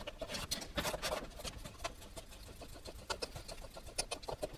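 Faint, irregular light clicks and scrapes of a hand tool working a bolt on the timing belt cover, with metal parts being handled.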